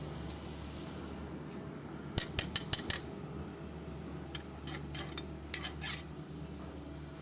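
Metal tools clinking and clicking against each other: a quick run of about five sharp clinks about two seconds in, then a looser series of clinks a little later. These are the handling sounds of a copper-pipe flaring tool kit.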